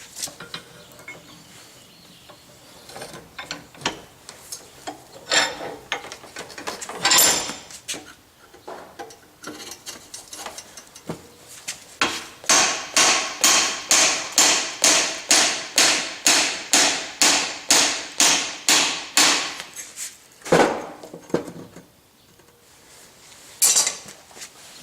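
Blacksmith's hand hammer striking a hot bar held in a vise, driving a monkey tool down to square the shoulder of a tenon. A few scattered knocks come first, then a steady run of about three blows a second for some seven seconds, then one more loud knock.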